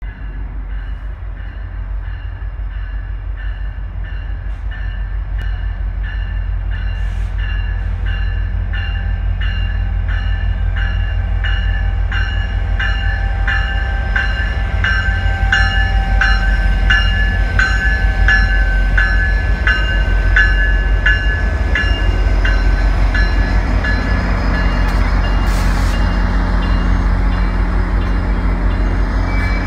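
GO Transit MP40PH-3C diesel locomotive pulling into the station, its deep engine rumble growing louder as it comes alongside. Its bell rings steadily about twice a second and stops a few seconds before the end.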